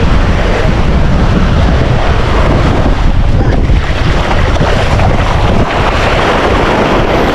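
Wind buffeting the microphone over the wash of sea waves, a loud steady rumbling noise.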